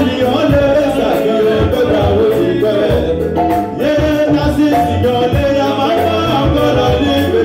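Live zouglou band music, loud and unbroken, with keyboard and bass under a male singer on a microphone.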